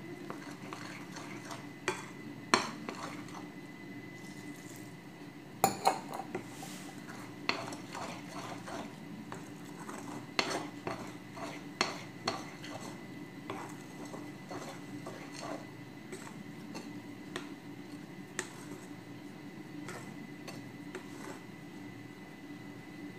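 A spoon clinking and scraping against a glass mixing bowl while flour and milk are stirred into a bread dough, with irregular sharp knocks of the spoon on the glass.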